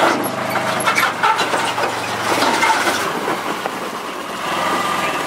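Polaris Ranger XP utility vehicle on rubber tracks, its engine running as it crawls over a metal trailer ramp, the tracks clanking and knocking on the metal. The engine note drops about three seconds in.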